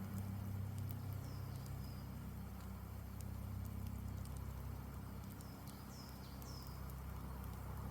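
Campfire wood burning with soft, scattered crackles and small pops. Birds give short, high, falling chirps about a second and a half in and twice around six seconds, over a steady low rumble.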